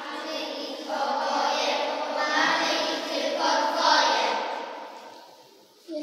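A group of children singing a song together, their voices tailing off near the end before the next line starts.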